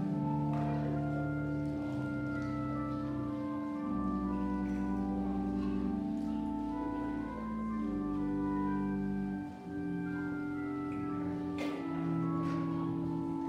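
Organ playing slow, sustained chords, the held notes and bass changing every second or two.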